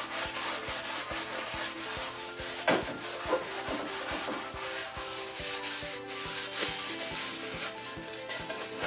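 A cloth rag wiping wet wood stain off a wire-brushed pine board in quick repeated strokes.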